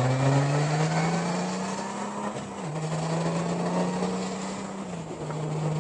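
Motorcycle engine running under way with road and wind noise; its pitch climbs over the first two seconds, drops at a shift about two and a half seconds in, then steps down again near five seconds.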